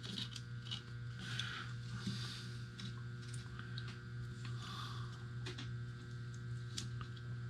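Faint scattered clicks and light handling of small plastic connectors and cables being fitted to a DVR circuit board, over a steady low hum.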